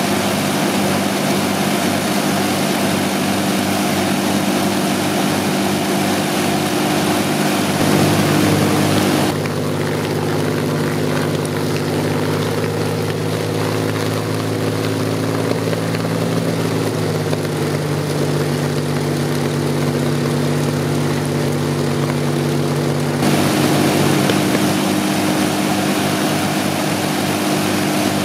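Two Rolls-Royce Merlin V12 aero engines running with their propellers turning, a loud, steady, deep engine drone. For about fourteen seconds in the middle the sound turns duller before the brighter sound returns.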